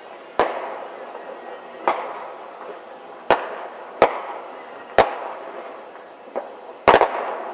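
Fireworks going off: about seven sharp bangs roughly a second apart, each trailing off in an echo. The loudest is a double bang near the end.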